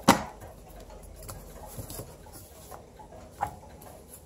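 A short sharp sound at the very start, then soft, scattered paper-handling sounds and light taps from old magazines being touched on a table.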